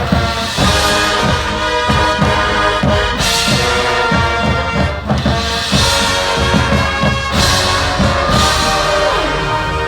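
High school marching band playing its show opener: the brass section holds loud sustained chords over steady percussion hits, with a swell of bright high-end sound every couple of seconds.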